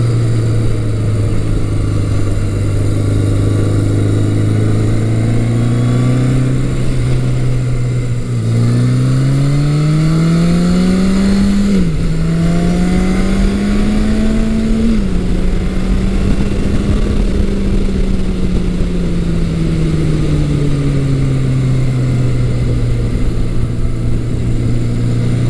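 A 1980 Yamaha XS1100 Special's air-cooled inline-four engine running on the road, heard from the riding seat with wind noise. It holds a steady cruise, then about eight seconds in it pulls hard with rising revs, shifting up twice (two sudden drops in pitch). Then it eases off with the revs falling slowly.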